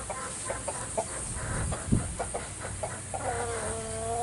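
Chickens clucking in a quick run of short notes, then one longer drawn-out call near the end. A single low thump about two seconds in.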